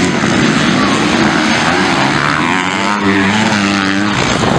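Several motocross bikes racing past, their engines revving, with the pitch climbing and falling as riders work the throttle through a corner.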